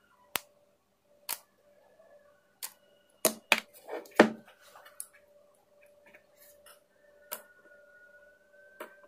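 Sharp clicks and knocks at irregular intervals, about eight in all, the loudest few bunched together a little past the middle, over a faint steady hum.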